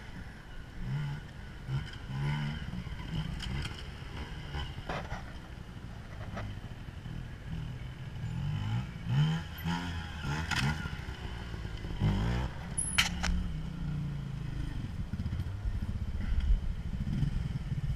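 Trials motorcycle engine running at low revs, blipped in short bursts of throttle that rise and fall in pitch as the bike picks its way over rocks. A few sharp knocks and clatters stand out, one about five seconds in, two more later.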